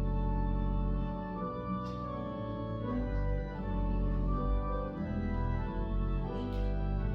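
Slow instrumental music of long held keyboard chords, changing every second or so.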